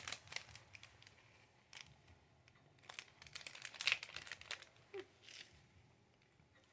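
Faint, irregular crinkling and crackling of a snack bag of roasted crickets being handled, thinning out after about four and a half seconds.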